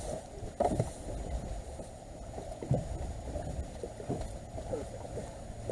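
Water lapping against a small fishing boat's hull, with wind on the microphone and a few dull knocks.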